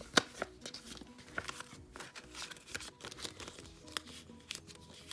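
Paper banknotes and a thin plastic cash envelope rustling and crinkling in the hands as bills are slipped in and the envelope is pressed shut, with a few sharp clicks, the loudest just after the start. Soft background music plays underneath.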